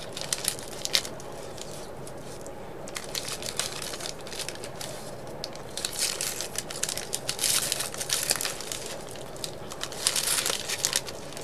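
Paper sleeve of a McDonald's hash brown crinkling in the hand while the hash brown is bitten and chewed, in several crackly bursts.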